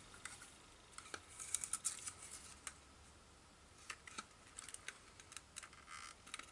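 A hand-held paper punch being handled: a strip of cardstock slid into its guide and the plastic punch pressed, giving faint paper rustles and scattered small plastic clicks.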